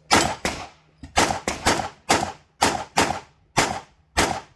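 Rapid pistol fire from a Tanfoglio handgun during an IPSC stage: about eleven shots, some in quick pairs and others spaced about half a second apart, each with a short echo.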